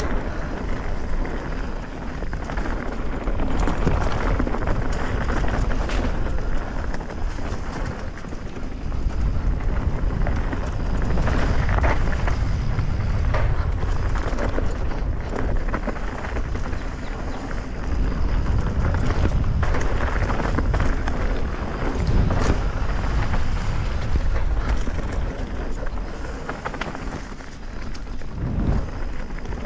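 Mountain bike riding a dirt flow trail: wind buffeting the microphone over the rolling noise of the tyres, with the bike knocking and rattling over bumps.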